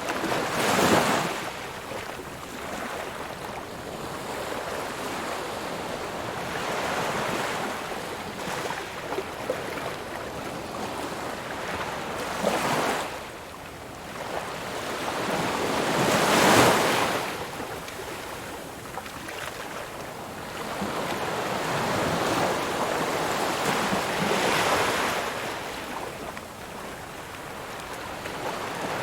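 Ocean waves breaking on a shore: a steady wash of surf that swells into louder breakers every several seconds.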